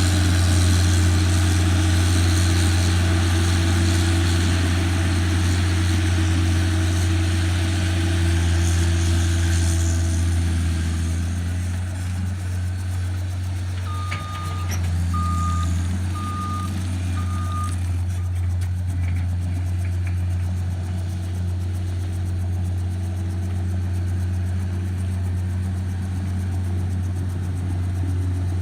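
A John Deere skid steer's engine running steadily, its note easing off somewhat partway through. About halfway through, its reverse alarm sounds four short, evenly spaced beeps as the machine backs up.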